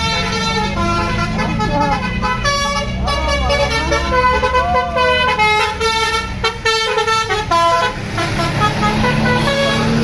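Bus telolet horn playing a tune of stepping notes as a tour bus passes, over the low rumble of the bus engine.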